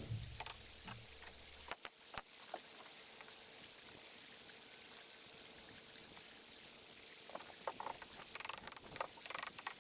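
Creek water running steadily over rocks, a soft even rush. A few scattered clicks and knocks sound near the end.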